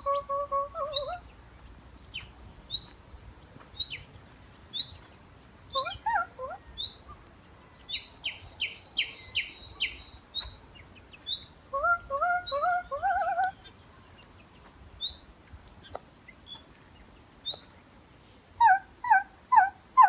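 A common nightingale singing: scattered short high chirps and a fast run of repeated notes about eight seconds in. Short, lower, rising warbled phrases from a woman's voice answer it, imitating the song, about twelve seconds in and again near the end.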